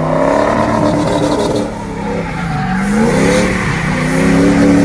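Truck engine revving hard under load: its pitch sags about two seconds in, then climbs again and holds high.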